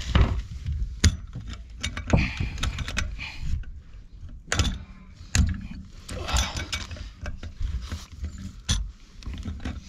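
Pipe wrench turning a brass threaded fitting onto an old iron pipe: irregular metallic clicks, knocks and scrapes as the jaws take up and the threads wind in.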